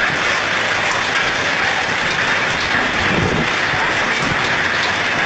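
Severe storm: a steady, dense roar of heavy rain and wind, with a low rumble about three seconds in.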